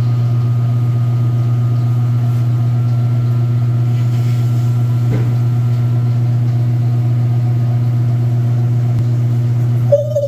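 Washing machine running with its basket moving, a steady low hum. Just before the end a different steady, higher tone cuts in suddenly.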